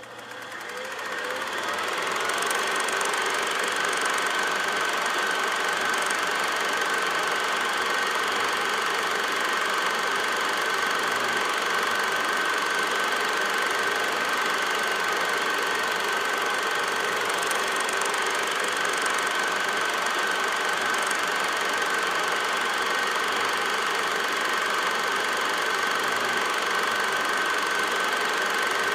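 Old film projector running steadily, its mechanism giving a continuous mechanical rattle with a thin high whine over it. It swells in over the first couple of seconds.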